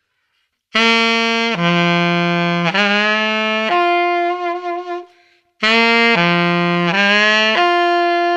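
Alto saxophone played solo, sounding the same four-note phrase twice: G, down to D, scooping up into F sharp (the major third), then up to the D root, held with vibrato. This is the fourth-to-root-to-major-third resolution of a minor blues scale lick.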